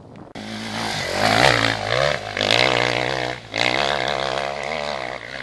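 Enduro dirt bike engine revving hard under load as it climbs a steep, loose hill, the revs wavering up and down. It cuts in suddenly just after the start and drops briefly a little past halfway.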